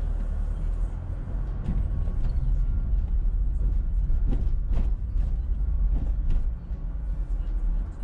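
Car driving, with a steady low rumble of road and engine noise and scattered short knocks and clicks, several of them close together around the middle.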